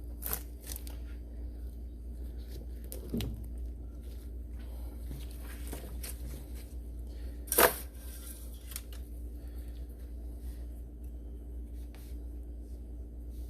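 Scattered small clicks and handling knocks while working at a car's oil filler and engine bay, with one sharp click about seven and a half seconds in, over a steady low hum.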